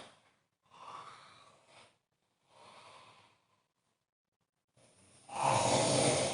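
A sleeping person snoring: two faint breaths, then a loud snore about five seconds in.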